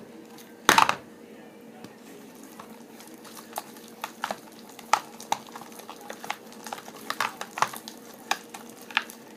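Homemade slime being stirred in a bowl: irregular small clicks and squelches, with a louder clatter about a second in.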